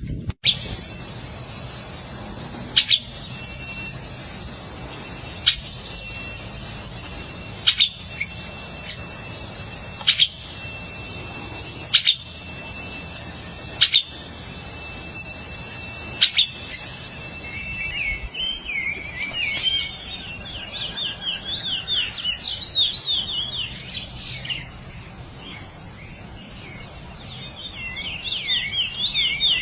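Wild birds calling and singing: a short, sharp call repeated about every two seconds over a steady high-pitched buzz, then, from a little past halfway, a rapid warbling song that comes in two spells.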